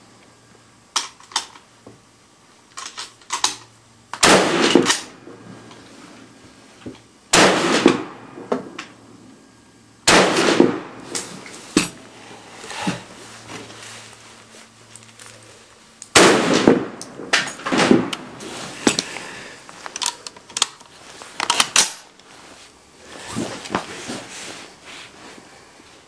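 SKS semi-automatic rifles firing 7.62×39mm rounds: about five loud single shots a few seconds apart, each followed by a short ringing echo. Fainter sharp cracks and clicks fall between them.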